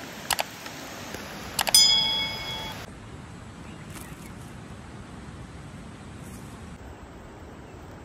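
Two pairs of mouse-click sound effects, then a single bright notification-bell ding that rings out for about a second: the sound effects of a subscribe-and-bell overlay. After that, a faint steady hiss of outdoor ambience.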